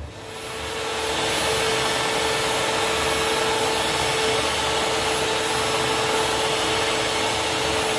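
Electric stand mixer starting up and running, its beaters whisking a thin liquid cake batter of eggs, sugar, milk and oil in a stainless steel bowl. The motor's hum builds over about the first second, then holds a steady pitch.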